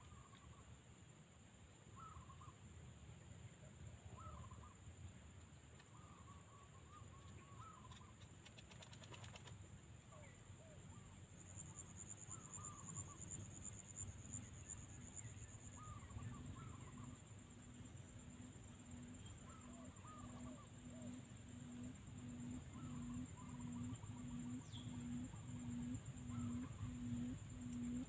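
Quail calling faintly at a trap cage: short chirps about every two seconds, then from about halfway a low, pulsing hoot repeated about twice a second that grows louder. A steady high whine runs underneath.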